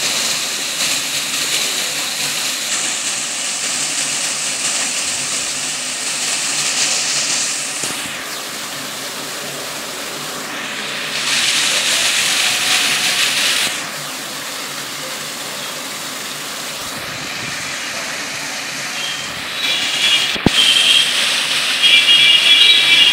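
Water from a wall cascade and a row of foam jets splashing into the fountain pool, a steady rushing hiss that swells for a few seconds in the middle and eases again. A single sharp click comes near the end.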